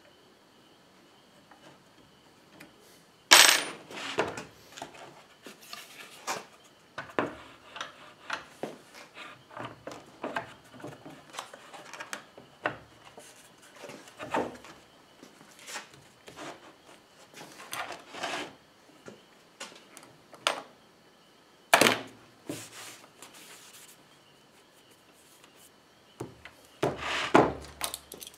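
Knocks, clatters and rubbing of plywood and steel parts being handled and fitted together as the wooden top of a shop-made XY table is set onto its steel base and lead screw. It starts after a few quiet seconds with a loud clack, then goes on as scattered small knocks, with further loud ones about two-thirds of the way through and near the end.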